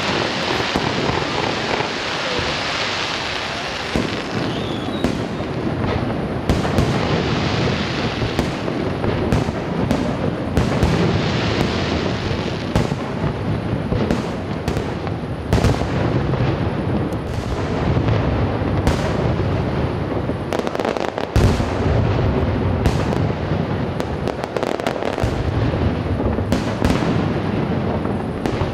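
A fireworks display going off without a break: many sharp bangs of bursting aerial shells over a steady crackle and hiss. Heavier deep booms come thick about two-thirds of the way in and again near the end.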